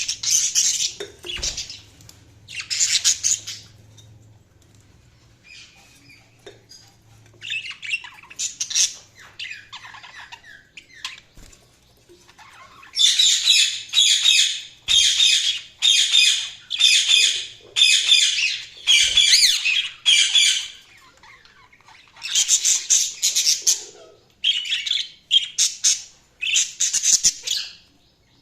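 Budgerigar chirping in short bursts of high, scratchy chatter, each about half a second long, with a run of about eight bursts roughly one a second in the middle.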